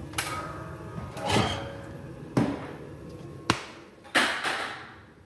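About five sharp knocks and thumps, roughly a second apart, some with a short ringing tail.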